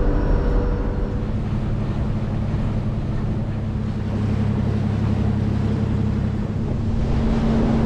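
Nordhavn 50 trawler running underway: the main diesel engine's steady low drone, with wind and water noise over it.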